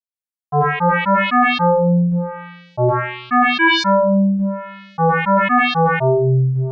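NHT software synthesizer playing its 'Squarcity' patch, a tone built from nested sine, arcsine and hyperbolic-tangent functions, note by note from an on-screen MIDI keyboard. Starting about half a second in come three short melodic phrases, each a quick run of notes ending on a longer held note that fades away.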